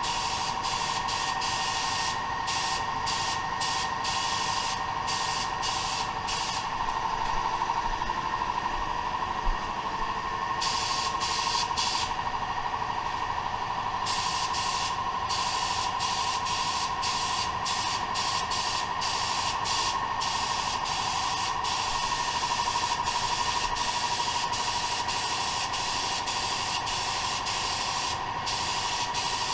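ANI black HVLP spray gun with a 1.3 mm tip spraying clear coat: a steady hiss of atomising air with a steady tone running through it.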